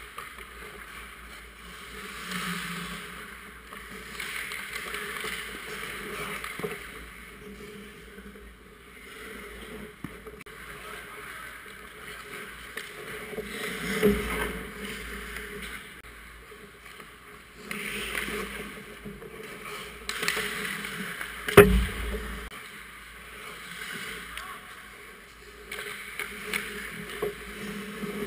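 Ice hockey skates scraping and carving on rink ice, swelling and fading as players skate in and out, with the clack of sticks and puck. A sharp impact about halfway through and a louder one about two-thirds of the way through are hits of the puck or sticks near the goal.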